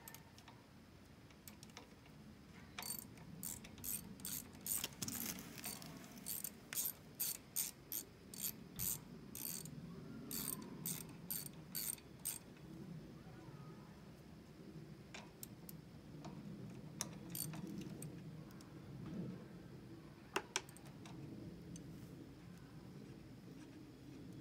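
Hand socket ratchet clicking steadily, about two or three clicks a second, for some ten seconds as a 10 mm mounting bolt on the fuel pump is turned. After that only a few scattered handling clicks.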